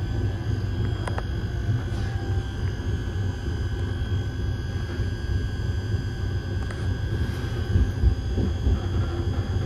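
Steady low rumble of a moving Casaralta-built 'piano ribassato' passenger coach, heard from inside, with a faint steady hum above it and a few light clicks.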